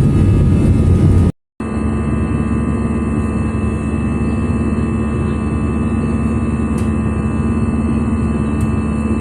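Airliner jet engines heard from inside the cabin on takeoff, a loud steady noise. It breaks off for a moment about a second and a half in, then goes on as a steady drone with a low held hum.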